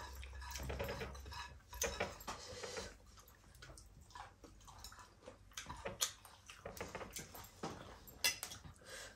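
Eating by hand: fingers mixing rice and curry on a plate and chewing, heard as scattered soft clicks and wet smacks of varying loudness.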